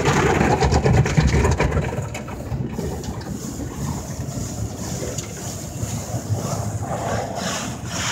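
Automatic tunnel car wash machinery running, heard from inside the car: a steady rushing noise over a low rumble, louder for the first two seconds and then easing.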